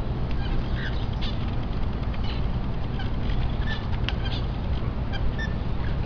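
Many caged birds chirping in short, scattered calls over a steady low rumble.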